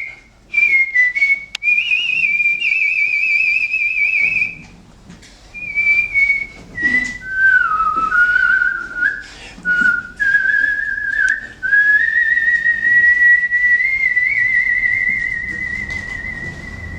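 A man whistling a song melody by mouth, in the art-whistling style, with a marked vibrato. He whistles in phrases with short breaks and ends on a long held note with vibrato that slowly fades.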